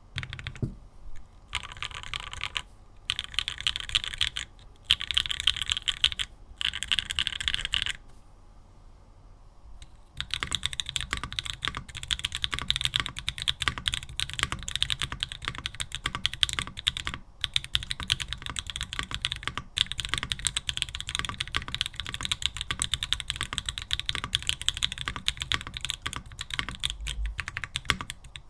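Typing on a Mode Tempo 60% mechanical keyboard with Mode keycaps and no foam inside. It starts with four short bursts of fast keystrokes on Obscura switches, pauses briefly about eight seconds in, then types steadily and fast on Tomorrow switches.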